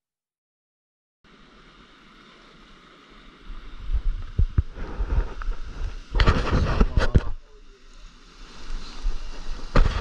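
Silence for about a second, then ocean surf washing over a rocky shoreline with wind rumbling on the microphone, and several louder surges in the middle and near the end.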